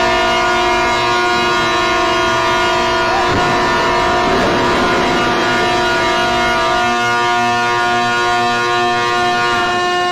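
Ship's horns sounding one long, loud, steady blast, several pitches at once, as ships salute a launch.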